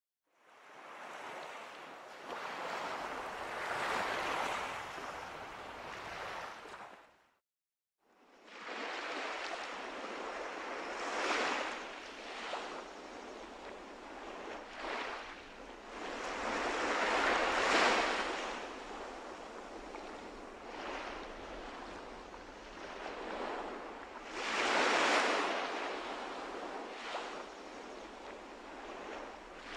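Atlantic surf breaking and washing over a shallow sandy beach. It is a steady rushing wash that swells louder as each wave breaks, about every six or seven seconds, and drops out completely for about a second near the quarter mark.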